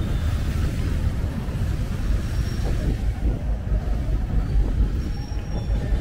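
Steady low rumble of road traffic, with no single sound standing out.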